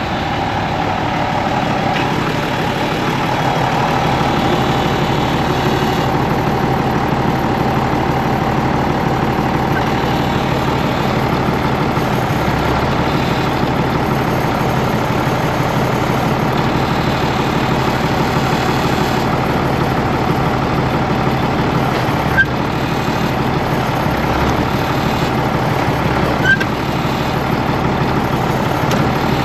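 Tractor engine running steadily while its hydraulics swing the bale thrower on a New Holland 275 baler through its range, with two short sharp clicks in the last third.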